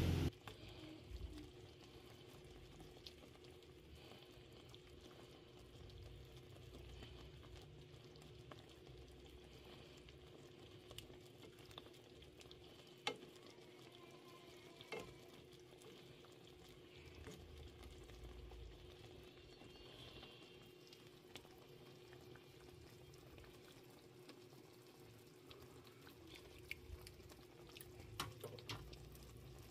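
Faint kitchen room tone: a steady low hum with a few soft clicks scattered through it.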